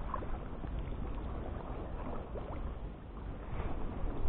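Kayak paddle strokes: the blades dipping into the river water with small splashes and drips.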